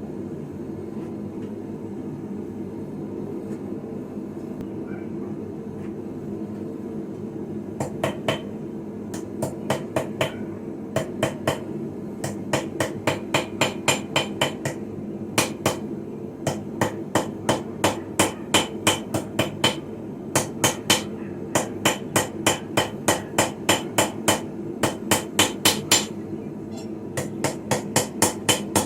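Hand hammer striking hot steel on a Viking-style anvil while forging a sickle blade, each blow ringing, about three blows a second with short pauses. The hammering starts about eight seconds in, over a steady low hum.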